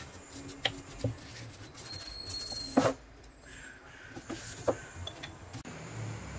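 A few light knocks and clicks from a paintbrush and a glass jar being handled; the sharpest knock comes a little under three seconds in.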